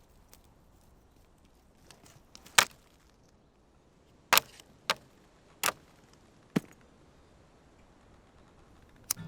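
A series of about six sharp knocks or clacks at irregular intervals, the loudest a little over two seconds in, with quiet in between.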